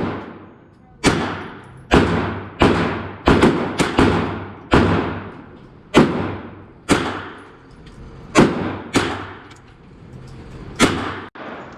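A string of gunshots, about a dozen over the span, fired one at a time at uneven spacing from a semi-automatic AR-style pistol. Each shot cracks sharply and rings out in a fading echo.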